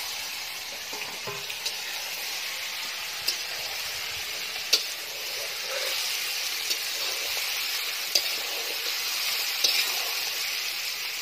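Fish pieces sizzling as they fry in hot oil in a steel kadhai, with a steady hiss. The metal spatula clicks and scrapes against the pan a few times as the pieces are stirred.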